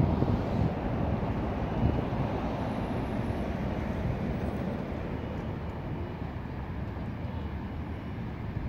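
Steady low rumbling background noise outdoors, even throughout with no distinct events, easing slightly toward the end.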